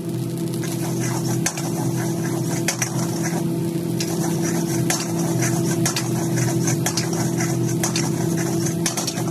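Steel ladle scraping and clacking against a large iron wok as fried rice is stirred and tossed, with many quick strikes over the sizzle of the rice frying. A steady low hum runs underneath.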